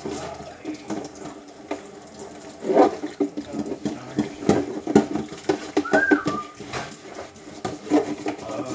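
Dishes being washed by hand in a kitchen sink: irregular clinks and knocks of dishes and utensils against each other and the sink, with some water. A brief high squeak about six seconds in.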